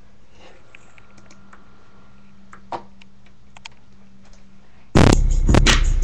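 A few faint clicks from a laptop keyboard and mouse over a low steady hum. About five seconds in, loud bass-heavy music cuts in suddenly through the subwoofer speakers for a bass test.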